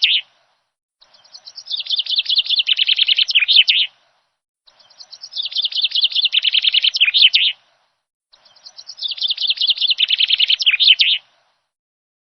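A songbird's twittering phrase of rapid chirps and trills, about three seconds long, repeated three times in near-identical form with silent gaps between, like a looped recording.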